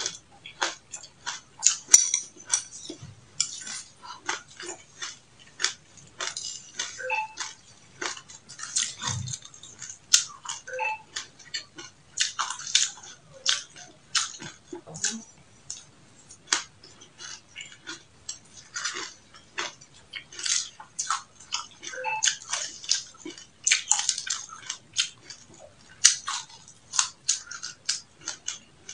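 Close-up crunching and chewing of a mouthful of dry sesame and mixed seeds: a dense, irregular run of sharp, crisp crunches.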